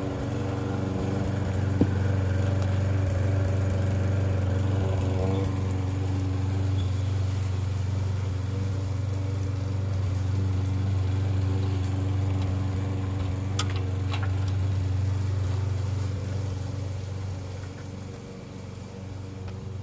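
A steady engine drone that fades away near the end, with two light clicks a little past the middle.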